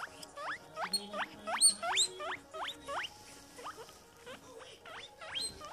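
Guinea pig wheeking: a quick run of short squeals, each rising sharply in pitch, about two or three a second, growing fainter after about three seconds.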